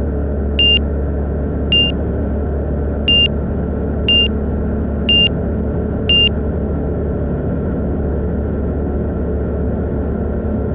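Steady drone of a Van's RV-12iS's Rotax 912 iS engine in climbing flight. A short, high avionics alert beep sounds about once a second, six times, and stops about six seconds in.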